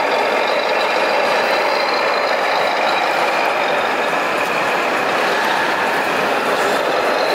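Scale RC model Mercedes-Benz truck driving slowly, with a steady, unbroken engine-like running sound over the hum of a busy exhibition hall.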